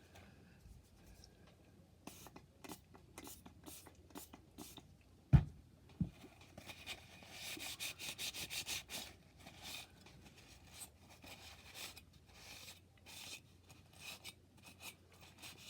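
A towel rubbing and scrubbing on graphics card parts in short, uneven strokes, wiping off caked-on old thermal paste, with a denser run of rubbing a little past the middle. A sharp knock comes about five seconds in.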